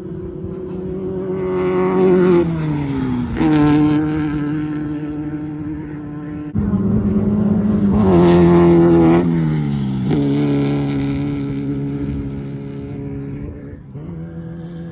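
Class 1600 off-road race cars, with air-cooled Volkswagen flat-four engines, passing at high revs one after another. The engine note drops in pitch as each car goes by, loudest about two seconds in and again from about six and a half to ten seconds in.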